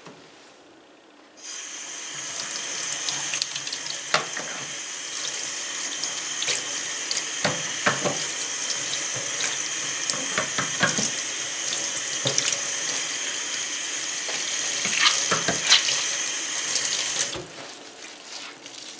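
Kitchen tap running into a stainless steel sink, turned on just over a second in and shut off near the end. Sharp knocks and clinks are heard through the running water.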